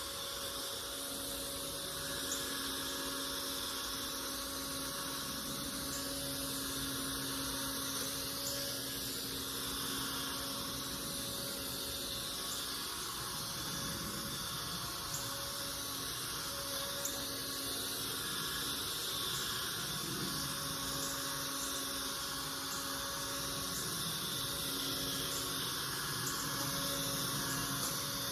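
A motor running steadily, with a constant hum of held tones over a whirring noise.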